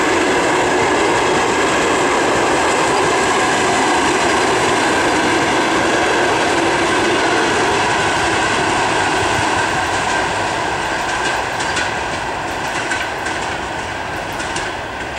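Passenger train coaches rolling past on the rails, a steady loud rumble and clatter of wheels on track. After about ten seconds it slowly fades as the end of the train draws away, and sharp wheel clicks stand out.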